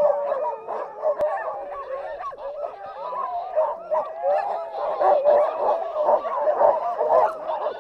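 A team of harnessed sled dogs barking and yelping all at once, many voices overlapping without a break: the excited clamour of dogs straining to run.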